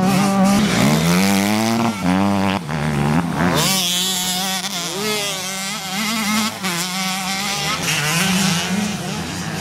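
Motocross bike engines revving, the pitch rising and falling again and again as the throttle opens and closes, with a sharp climb about three and a half seconds in.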